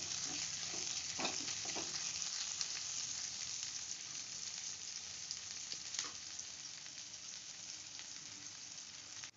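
Sliced onions, green chillies, bay leaf and cumin seeds sizzling in hot oil in a kadai, with a few scrapes of a spatula against the pan in the first two seconds. The sizzle grows a little quieter toward the end.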